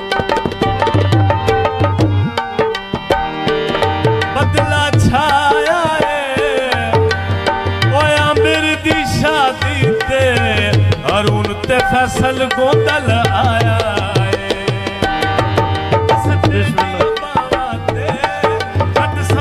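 Live Punjabi folk music: tabla playing a steady beat under sustained held chords. An ornamented, wavering melody line comes in about five seconds in and fades back out a few seconds later.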